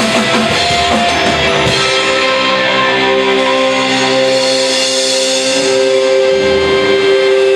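Live rock band with electric guitar and drum kit playing. About two seconds in, the drum hits drop away and sustained, ringing guitar tones carry on.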